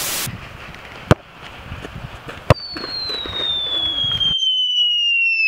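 An edited-in sound effect: a brief hiss of TV static at the start, two sharp cracks, then a long whistle that falls slowly and steadily in pitch, a falling-bomb whistle effect.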